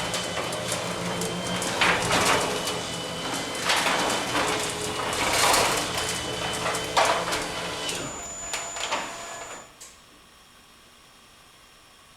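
Genie QuietLift belt-drive garage door opener running a sectional door along its tracks: a steady motor hum with rattles from the door every second or two. About eight seconds in, the run ends and the hum fades to a quiet room.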